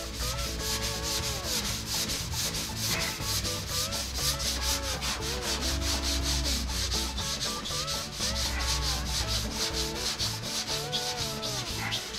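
Hand scrubbing with a green abrasive scouring pad on the painted steel roof of a 1971 Chevrolet C10 cab, in fast back-and-forth strokes several a second. The pad is scuffing the paint and black residue ahead of repainting.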